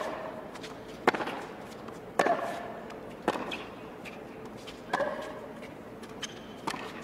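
Tennis rally: racket strings striking the ball back and forth, about one sharp hit a second, with a few lighter ball bounces in between.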